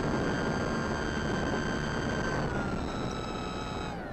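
Brushless electric motor and propeller of a Durafly Tundra RC plane, heard from the onboard camera, whining steadily over a rushing noise. About halfway through the whine starts sliding down in pitch and drops further near the end as the motor winds down and the propeller slows.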